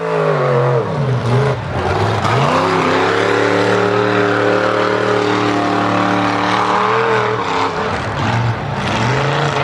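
Mud truck's engine running at high revs, its pitch dropping sharply and climbing back several times as the load and revs change.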